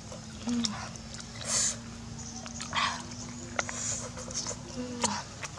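Cooked river snails being picked from a metal wok and sucked out of their shells, with short clicks and brief slurps. Under them runs one long, steady whine that bends in pitch at its start and end.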